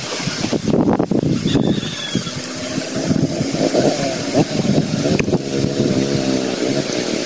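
A small engine running with a wavering pitch, coming in about two seconds in, over wind noise on the microphone.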